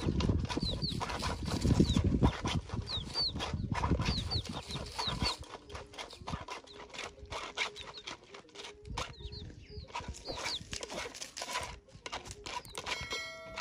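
Passion fruit pulp and sugar being rubbed and scraped through a plastic sieve with a knife blade, pressing out the juice: a run of uneven scraping strokes, loudest in the first five seconds and lighter after. Short high bird chirps come through behind it.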